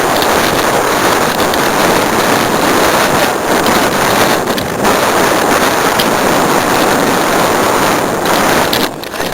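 Loud, steady wind noise buffeting the microphone of a camera carried on a moving mountain bike, with a brief dip about nine seconds in.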